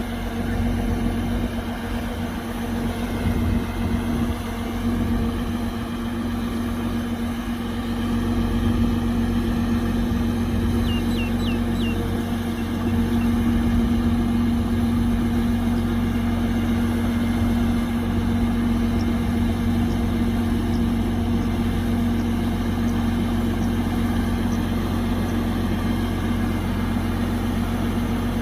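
Kubota DC-105X combine harvester's diesel engine running steadily, a constant drone with a strong even hum.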